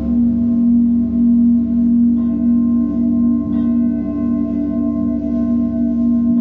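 A didgeridoo drone with a pulsing low end sounds under metal singing bowls. The bowls are struck about two seconds in and again a second and a half later, and each leaves high steady tones ringing.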